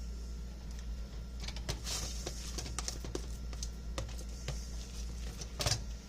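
A spoon scraping and clicking in an irregular run of light taps as mashed potato filling is spooned back into the potato skins, loudest about two seconds in and just before the end, over a steady low hum.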